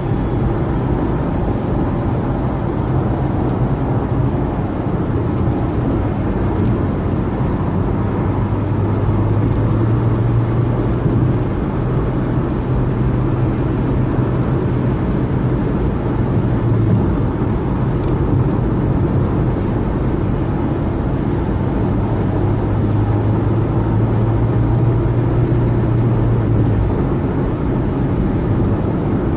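Car driving at freeway speed: steady road and tyre noise with a low drone underneath, which swells twice during the stretch.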